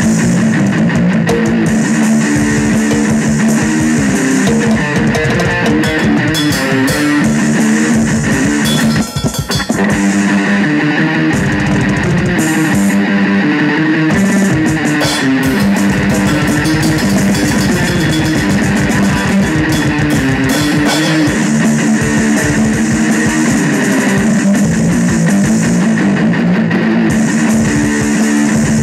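Heavy metal song with a repeating distorted electric guitar riff, bass guitar and a drum kit with cymbal hits, played loud. The music breaks off briefly about nine seconds in, then picks up again.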